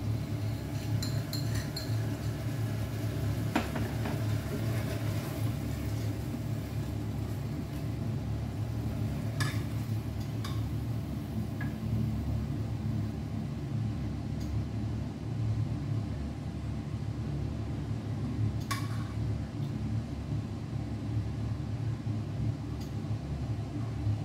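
A spatula stirring food in a stainless-steel saucepan, with a few sharp clinks of metal on metal, over a steady low hum.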